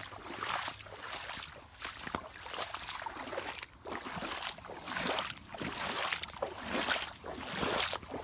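Water splashing and sloshing in a string of irregular strokes, about one every half second to second, like something moving through shallow water.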